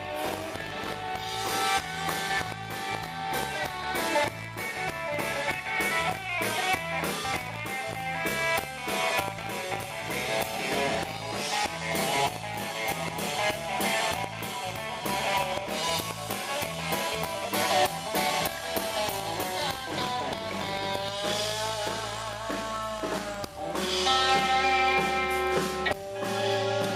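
Live band playing, with a lead guitar soloing over bass and drum kit. The guitar's bent notes glide in pitch a little past three-quarters of the way through.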